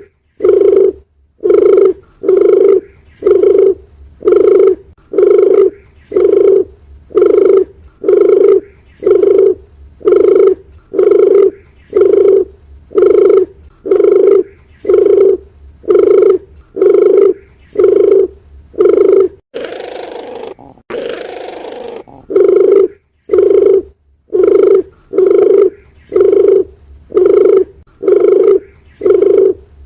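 A dove cooing: short low coos repeated at an even pace, about three every two seconds, as a looped lure call. About two-thirds of the way in the coos stop for a couple of seconds while a burst of hiss plays, then they resume.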